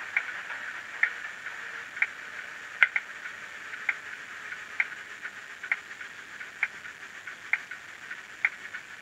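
Recorded Class 31 diesel engine sound from a Zimo sound decoder, played through a tiny speaker inside a stationary N gauge model: a thin, hissy engine sound with a sharp click about once a second. It slowly fades, then cuts off suddenly at the very end.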